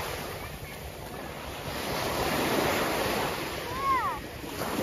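Ocean surf washing ashore, swelling and fading, with wind buffeting the microphone. A brief high arched call cuts in about four seconds in.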